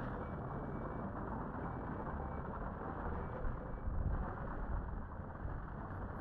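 Steady low rumble of road traffic, swelling slightly about four seconds in.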